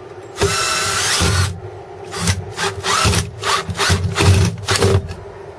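Cordless drill driving a long drywall screw through a pre-drilled pressure-treated 2x4 into a ceiling rafter. It makes one continuous run of about a second, then a quick string of short trigger bursts as the screw is driven home.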